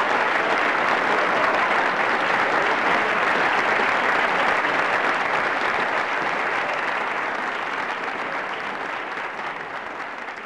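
Applause from many hands clapping, steady at first, then fading out over the last few seconds.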